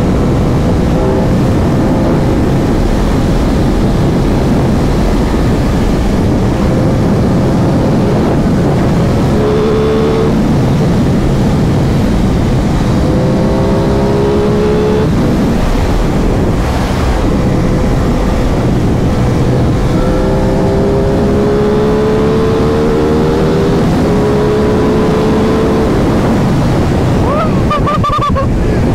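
Motorcycle riding at speed with heavy wind rushing over the microphone. The Aprilia Tuono 660's parallel-twin engine rises in pitch as it accelerates hard through the gears several times, with short breaks between the pulls at the shifts.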